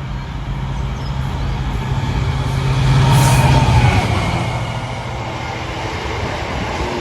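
Diesel freight train passing the camera: the locomotive's engine drone builds to its loudest about three seconds in and drops in pitch as it goes by, then the wagons keep rumbling past.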